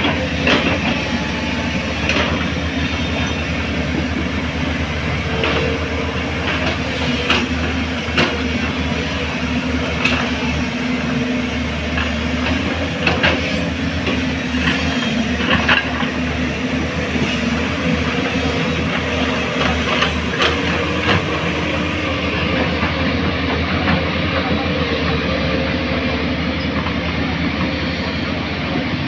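JCB backhoe loader's diesel engine running steadily while it works, with irregular metallic knocks and clanks.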